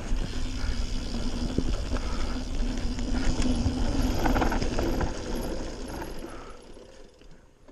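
Radon Swoop 170 mountain bike rolling down a dirt trail: tyre noise on the ground with knocks and rattles from the bike. It fades out over the last couple of seconds.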